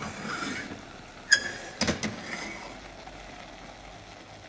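Two sharp knocks about half a second apart over a faint steady hiss, with some light scraping just before them.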